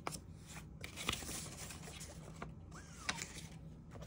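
Faint handling noise from unboxing: scattered soft rustles and a few small clicks as packaging is moved about.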